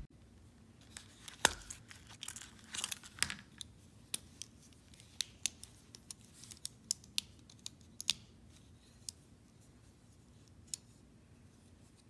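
A leather belt pouch's snap popping open with a sharp snap, the Leatherman ReBar multi-tool sliding out with a leathery rustle, then a run of crisp metal clicks as its handles are flipped open to expose the pliers, thinning to a few single clicks near the end.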